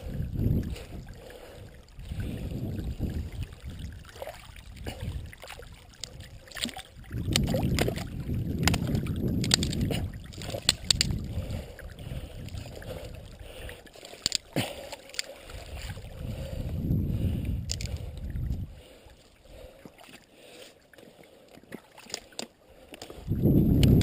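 Small boat paddled up a narrow, stick-choked creek: surging swishes of water with the paddle strokes, and many sharp ticks and clicks as twigs and branches scrape along the hull and paddle, busiest in the middle.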